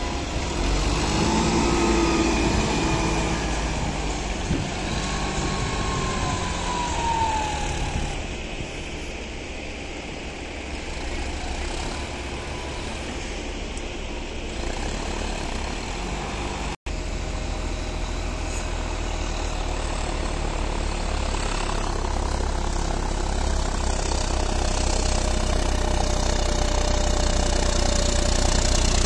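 John Deere tractor's diesel engine running steadily under load while pushing and backing through loose sugarcane bagasse with its front blade.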